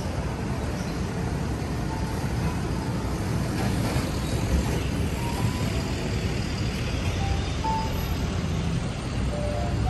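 City street traffic: a steady low rumble from the engines of a box truck and a small shuttle bus moving in the lane close beside the sidewalk.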